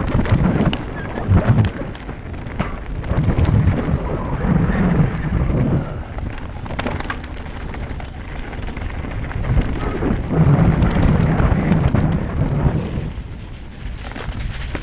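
Mountain bike descending a loose rocky trail: tyres crunching and rattling over stones and the bike clattering, with wind rumble on the helmet-camera microphone. It quietens near the end as the trail turns soft and muddy.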